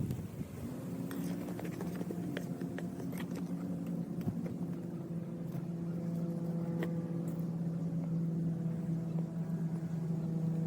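A steady machine hum that grows slowly louder, with scattered light clicks and knocks.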